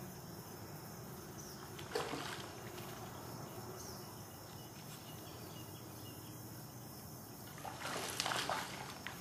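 A hooked fish splashing at the water's surface as it is reeled in: one splash about two seconds in, then a louder burst of thrashing beside the boat near the end.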